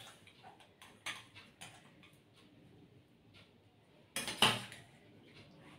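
A steel serving spoon clinks and scrapes against a stainless-steel bowl as chicken stew is ladled out, in scattered light clicks. There is one louder, longer clatter a little over four seconds in.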